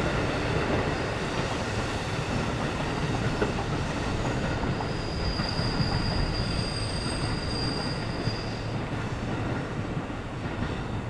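KiHa 11 series diesel railcars running slowly through a curve over pointwork, the noise easing as the train draws away. A high, steady wheel squeal sets in about four and a half seconds in and stops near nine seconds.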